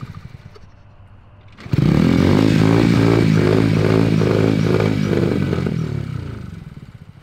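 Honda Z50R mini bike's small single-cylinder four-stroke engine catching abruptly and running for about four seconds, then dropping away near the end.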